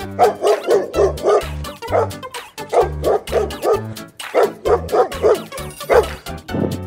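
Playful background music with a steady bass beat, over which a cartoon dog barks and yips over and over in short, quick calls.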